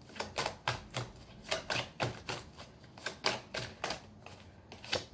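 A deck of tarot cards being shuffled by hand, giving a quick, irregular run of sharp card clicks and slaps that thins out near the end.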